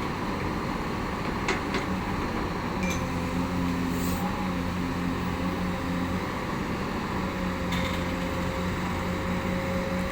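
Backhoe's diesel engine running steadily, with a low hum whose pitch shifts slightly a few times, and a few faint clicks.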